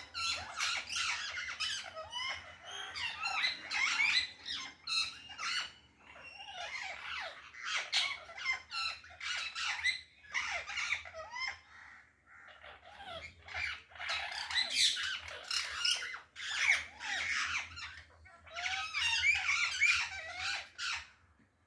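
Several parrots calling loudly, many short calls overlapping one another, with a few brief lulls.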